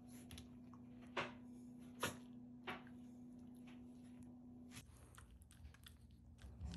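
Quiet room with a steady low hum and three soft clicks. About five seconds in, the hum stops and faint rustling follows as a Shiba Inu presses its head into a cloth pillow.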